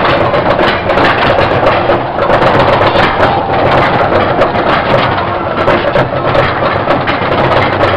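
Roller coaster train climbing the lift hill: a steady mechanical rumble with rapid clicking from the lift chain and anti-rollback, continuing throughout.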